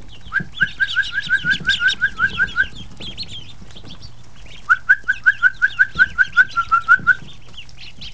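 A person whistling two quick runs of about a dozen short, rising notes each, about five a second, to call the ducklings so they learn to come to the whistle. Underneath runs the constant high peeping of a brooder full of Pekin, Rouen and Muscovy ducklings.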